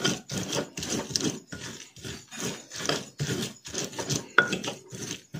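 Stone pestle grinding a coarse chili and shallot paste in a stone mortar (Indonesian ulekan and cobek): rhythmic gritty rubbing and scraping strokes, about two to three a second.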